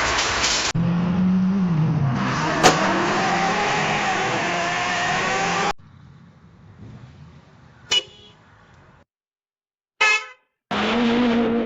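A run of car sound effects cut back to back. First comes loud car noise with a steady droning tone and a single sharp crack. It cuts to a quiet stretch with one brief knock. After a short silence there is a brief wavering blast, then a loud steady tone like a car horn.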